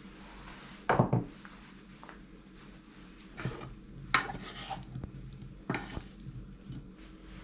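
A wooden spatula stirring diced potatoes in a nonstick saucepan, scraping and knocking against the pan in a few strokes over the second half. A sharp knock about a second in is the loudest sound.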